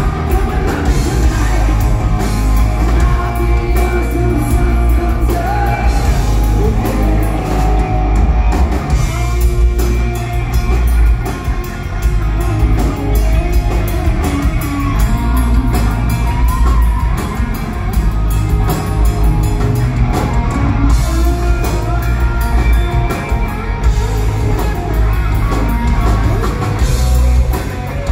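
Live rock band playing loud: electric guitars, bass and drum kit, with vocals.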